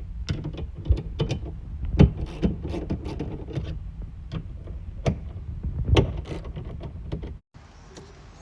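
Irregular clicks and knocks of hand tools working on the tailgate's actuator bolts and panel, over a steady low rumble. The sound cuts off suddenly about seven and a half seconds in.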